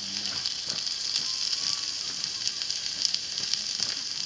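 Food frying in a pan: a steady sizzle with many small pops and crackles.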